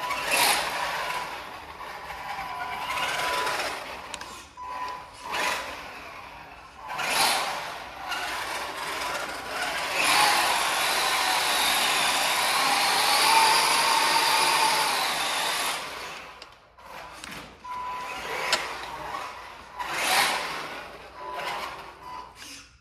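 Tamiya CC01 RC truck's stock brushed electric motor and drivetrain whining in repeated bursts of throttle on a 3S LiPo battery, its tyres scrubbing on tile as it spins donuts. The longest, loudest burst comes about halfway through and lasts roughly six seconds, its pitch rising and falling slightly.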